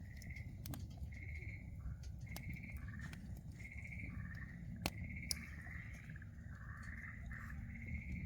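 Frogs calling: a run of short trilled calls at two alternating pitches, about one to two calls a second, over a steady low rumble.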